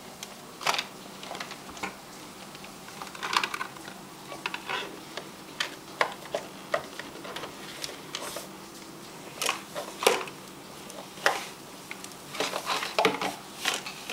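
Tupperware plastic containers clattering as a baby's hands pull and knock them about on a cabinet shelf, some tumbling to the floor: irregular sharp clacks, busier near the end.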